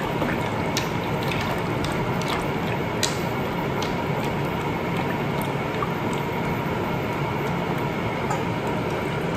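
Wooden spoon stirring penne and sausage in water in a pot: soft wet scraping with a few light clicks, over a steady even noise.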